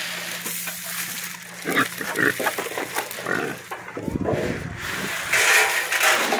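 Pigs grunting, with a louder, harsher stretch near the end.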